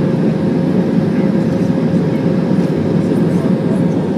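Steady drone of an Airbus A320's jet engines heard inside the cabin: a loud, even low rumble with a faint steady hum above it.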